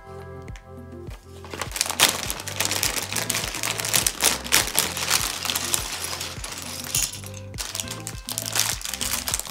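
Plastic LEGO pieces clattering as a bag of bricks is opened and emptied onto a table, with the plastic bag crinkling; the rattle is loudest about two seconds in and dies away after about seven seconds. Background music with a steady bass line plays throughout.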